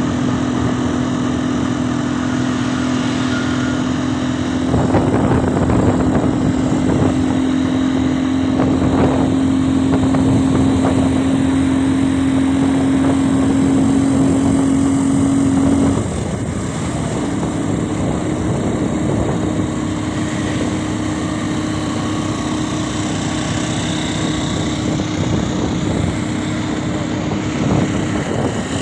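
Small vehicle engine running steadily at road speed, heard from on board over a rush of wind and road noise that grows louder about five seconds in. The engine hum breaks off about halfway through and picks up again a little higher.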